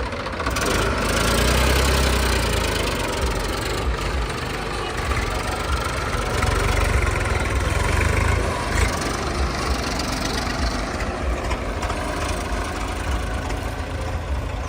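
Diesel engine of a backhoe or farm tractor running steadily, swelling in level twice as it is revved or put under load.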